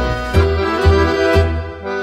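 Multitracked accordions playing a Finnish tango over a backing track, the melody held in long chords above bass notes on the beat about every half second. The music briefly thins out near the end.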